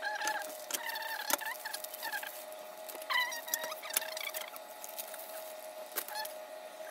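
Thick cream sauce bubbling in a pan on the stove: a patter of small pops and short squeaky bubbling chirps over a steady hum.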